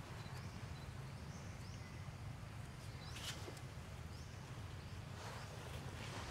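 Outdoor ambience: a steady low rumble with faint short rising chirps about once a second, and a few soft clicks or rustles around three seconds in.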